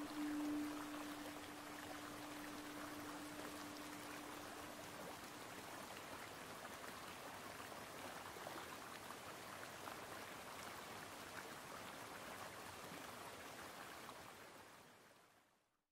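Relaxation soundtrack of steady running water, with a single singing-bowl tone ringing out and dying away over the first few seconds. The water sound fades out to silence near the end.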